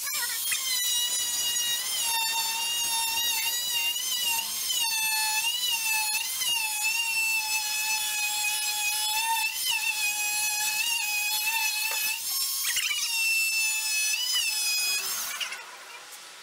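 Oscillating multi-tool running as it cuts into a log to free a stuck bandsaw blade: a steady high whine whose pitch wavers slightly as the blade loads, with a few sharp knocks. It stops near the end.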